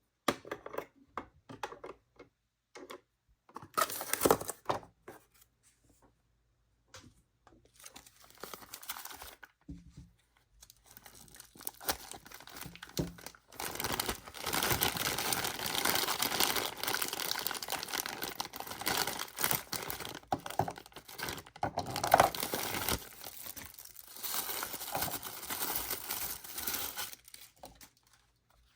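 Toy packaging being unwrapped by hand: first scattered clicks and handling knocks, then a long stretch of plastic and paper crinkling and tearing, with one sharp snap partway through.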